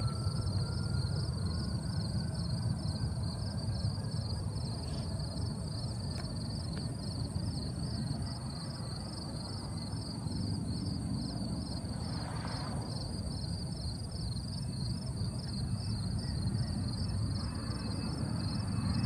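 Jet airliner's engines at takeoff power in the distance, a steady low rumble that grows louder near the end as the aircraft climbs out. A car drives past partway through.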